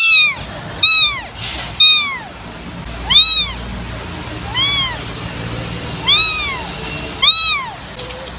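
Young kitten meowing over and over, about seven high-pitched meows, each rising and then falling in pitch, one every second or so.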